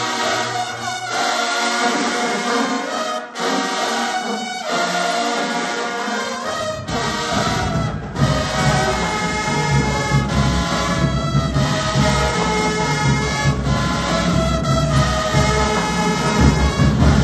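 High school marching band playing, led by sustained brass chords. A heavy low part comes in about six and a half seconds in and fills out the sound to the end.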